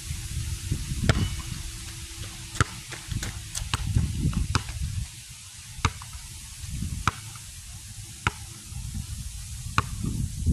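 Wind buffeting the phone's microphone in uneven low gusts, with scattered sharp ticks about once a second.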